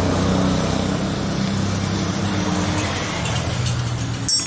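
A motor vehicle engine running steadily in the background, its pitch shifting a little partway through, with a sharp metallic clink of a tool near the end.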